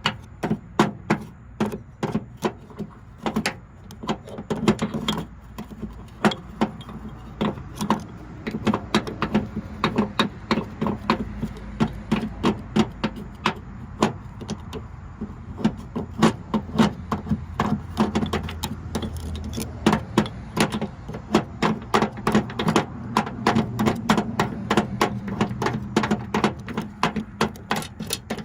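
A metal hand tool scraping and chipping at the Stripmeister wire stripper's parts to clear out packed insulation gunk, making irregular sharp knocks and clicks, several a second. A steady low hum sits underneath.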